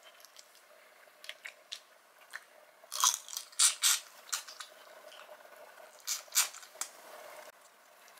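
Close-up eating sounds of a boiled Cajun shrimp: lighter clicks of shell being peeled, then loud crunchy bites and chewing about three seconds in and again about six seconds in.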